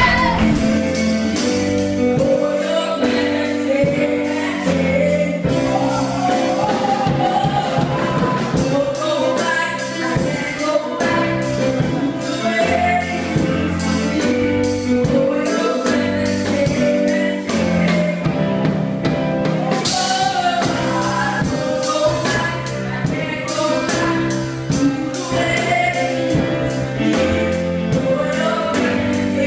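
Gospel worship music: singing over a stepping bass line and a steady beat.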